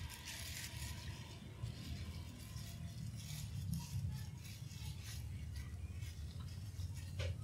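Thin clear plastic bag crinkling as it is pulled open by hand, over a steady low rumble, with a short click near the end.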